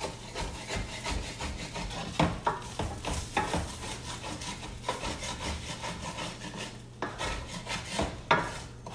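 Wooden spatula scraping the inside of a stainless steel sauté pan in repeated rasping strokes, cleaning out stuck-on bits from fried chicken. There are sharper knocks against the pan about two seconds in and near the end.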